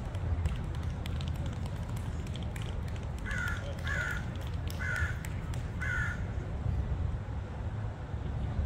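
A crow cawing four times, short calls roughly a second apart starting about three seconds in, over a steady low rumble.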